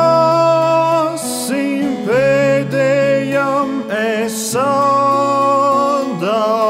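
A song: a singer holding long notes in several phrases over steady low instrumental accompaniment.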